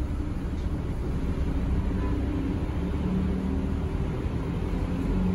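Steady low rumble of a Mitsubishi Fuso city bus's engine and road noise, heard from inside the moving bus, with a faint engine hum that shifts in pitch.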